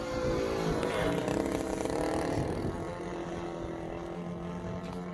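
DLE-35 single-cylinder two-stroke gasoline engine on a radio-controlled model airplane in flight, a steady buzzing drone. Its pitch bends down and back up about a second in, then holds steady.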